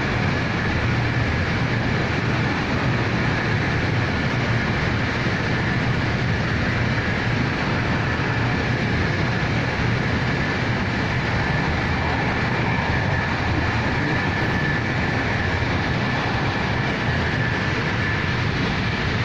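Steady running noise inside a passenger train carriage at speed: an even rumble and rushing with a faint high whine, unchanging throughout.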